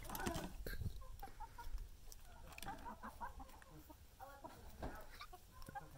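A flock of hens clucking quietly, a string of short calls scattered throughout.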